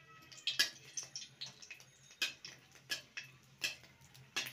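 Metal spatula scraping and tapping against a metal kadai while stirring dried red chillies in oil: sharp, irregular scrapes and clicks, roughly two a second.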